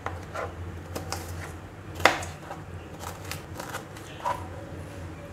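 Small kitchen knife slicing a green bell pepper into strips on a plastic cutting board: irregular knocks of the blade meeting the board, one louder knock about two seconds in.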